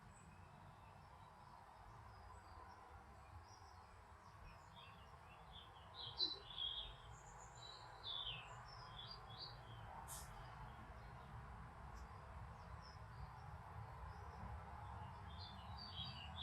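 Faint chirps and short twittering calls of small birds, bunched up about halfway through and again near the end, over a steady low background rumble.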